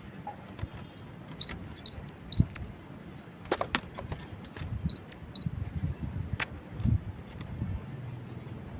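Cinereous tit (gelatik batu) singing: two quick runs of high, sharp whistled notes, the first about a second in and the second near the middle. A few sharp clicks fall between the runs.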